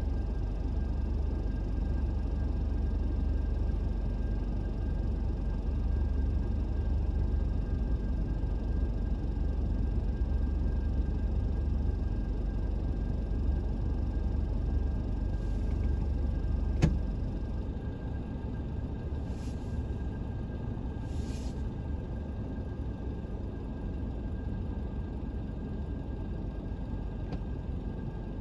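Steady low rumble of a motor vehicle on the road. A sharp click comes about 17 seconds in, and after it the deepest part of the rumble falls away.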